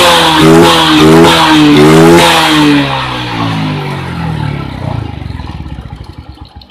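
Suzuki Smash's air-cooled single-cylinder four-stroke engine revved in several quick throttle blips, pulling up cleanly without dying now that the ignition has been fixed with a new CDI. About two seconds in the throttle is let go and the revs fall away, the firing pulses slowing until the engine stops near the end.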